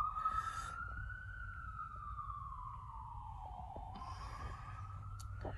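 Emergency vehicle siren wailing, its pitch rising slowly, falling over a couple of seconds, then rising again.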